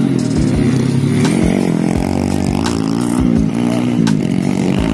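Motocross dirt bike engines revving up and falling back as the bikes ride the dirt track, with the pitch rising and dropping several times.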